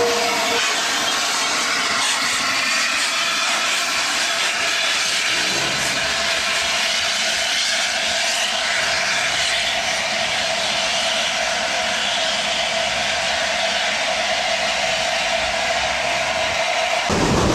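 Steam escaping from standing LNER steam locomotives, the A4 No. 60007 Sir Nigel Gresley beside the A1 No. 60163 Tornado: a steady loud hiss with a held tone, cutting off near the end.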